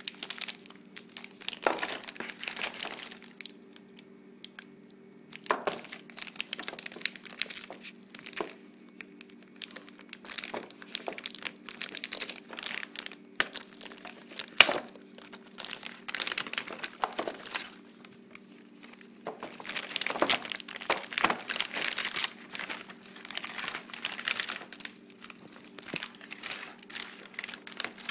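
Clear plastic bag crinkling and rustling in irregular bursts as a wireless router is handled and turned over inside it, with occasional sharp clicks, over a steady low hum.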